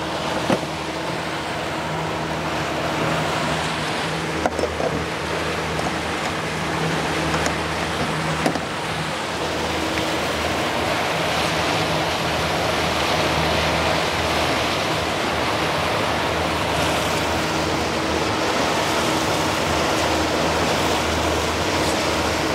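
A boat's engine running steadily at trolling speed, with a low hum under the rush of water and wind. A few brief knocks stand out over it.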